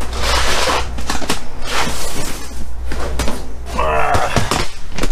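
Clear plastic storage totes being shifted and lifted: rustling and several sharp plastic knocks and clunks. A brief voice is heard about four seconds in.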